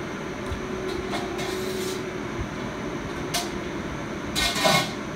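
Fried chicken being torn and eaten by hand: a few short crisp crunching and rustling noises, the loudest just before the end, over a steady low hum.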